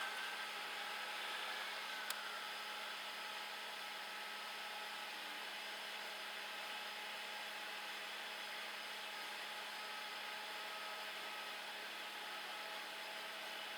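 CAT 330DL excavator's diesel engine and hydraulics running with a steady whir, and a single sharp click about two seconds in.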